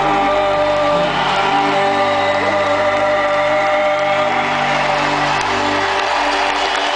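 Live rock band holding a final sustained chord, which dies away about five to six seconds in as crowd noise starts to rise.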